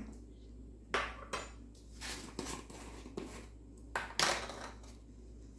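Kitchen utensils clinking and tapping: a metal tablespoon knocking against a bowl and spice containers as a tablespoon of seasoning goes onto raw chicken wings, in several light, scattered clinks, the loudest about four seconds in.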